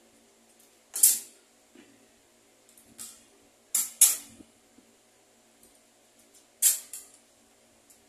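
Sharp clicks and knocks of the Britânia BVT410 Turbo fan motor's plastic frame and metal parts being handled and fitted together by hand, six or so in all, the loudest about a second, four seconds and near seven seconds in.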